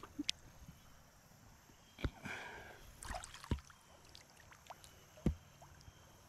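A hand splashing and sloshing in shallow creek water while grabbing a crayfish, with two short splashy bursts about two and three seconds in and a few dull knocks.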